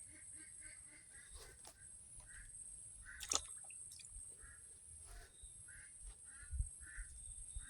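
Short animal calls repeating about twice a second over a steady high-pitched insect drone, with a low rumble underneath and one sharp click about three seconds in.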